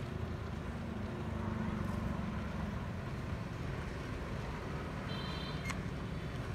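A steady low rumble of outdoor background noise. About five seconds in there is a brief high tone, then a single sharp click.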